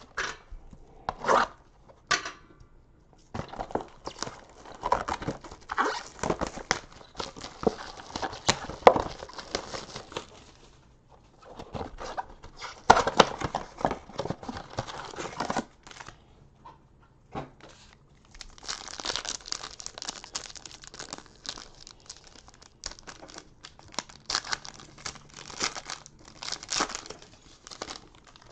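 Clear plastic shrink-wrap crinkling and cardboard tearing as a trading card blaster box is unwrapped and opened. It comes in two long stretches of crackly handling noise with a short lull between them, after a couple of sharp rips at the start.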